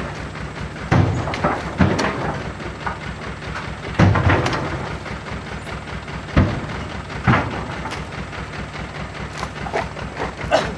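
Heavy thuds of oil palm fruit bunches landing in a steel dump-truck bed as they are pitched up one at a time, about five separate thuds spread irregularly through the stretch.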